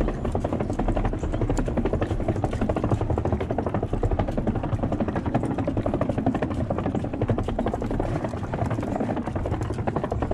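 Wind buffeting the microphone: a steady low rumble with a fast flutter.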